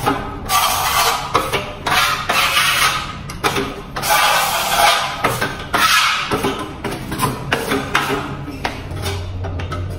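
Steel trowel scraping across a plastered wall in repeated strokes of about half a second to a second, spreading and smoothing skim-coat putty.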